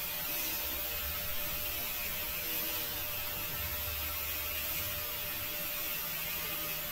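Angle grinder with a paint-stripping wheel running steadily, shaving down seat foam: an even motor hum with a constant tone and hiss.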